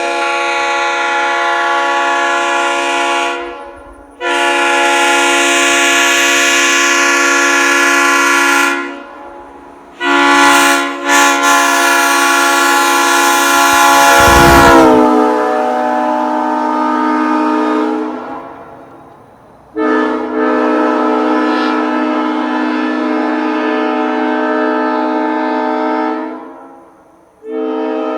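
1960 Leslie S3L three-chime train air horn with aluminum Tabby heads and bells 25, 31 and 44, sounding a series of five long blasts, each a steady loud chord several seconds long. The third blast, about ten seconds in, starts with a few quick stutters, and its chord sags downward in pitch as it cuts off.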